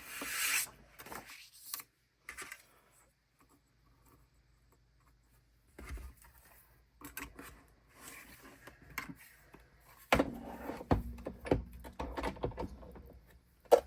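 Hands handling paper and die-cutting pieces on a desk: a brief rustle of paper at the start, a quiet lull, then scattered rubbing and light knocks.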